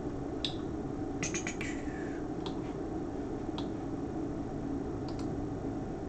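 Scattered short sharp clicks, about nine in all, with a quick run of four about a second in, over a steady low room hum.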